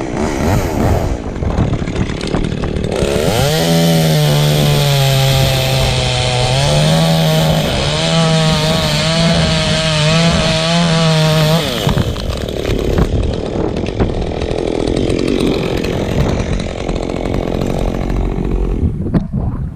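Chainsaw at full throttle cutting for about eight seconds, starting about three seconds in. Its pitch dips under load for a few seconds and then rises again, before the saw drops back off the throttle.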